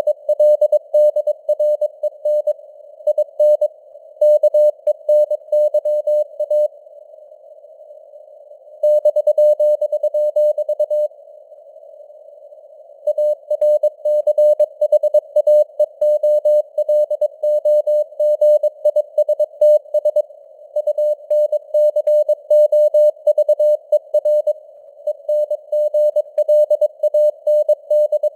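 Morse code (CW) at 22 words per minute: a single tone of about 600 Hz rapidly keyed on and off in dots and dashes, over a narrow band of simulated radio hiss. It breaks off twice for about two seconds a third of the way in.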